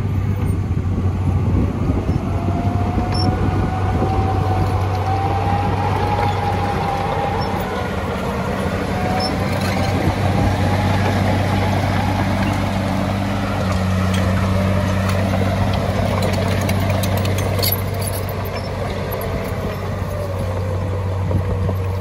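Heavy construction machinery running: a diesel engine's steady drone, with a higher tone above it that wavers up and down.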